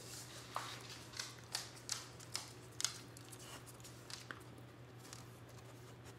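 Rottweiler puppy chewing raw chicken bone and skin: about eight sharp, irregular crunches, most of them in the first three seconds, over a low steady hum.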